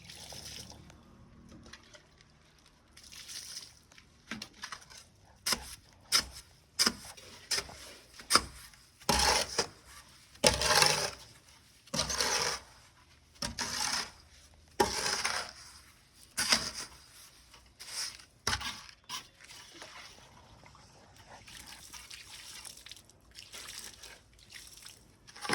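Water splashing and spattering in irregular short bursts, about one a second, louder through the middle stretch.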